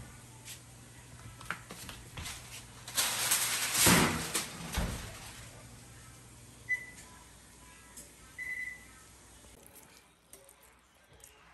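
Kitchen handling sounds: a knock as a glass baking dish is set down on the counter, then a louder rustling clatter with a couple of knocks a few seconds in. Two short high beeps follow later.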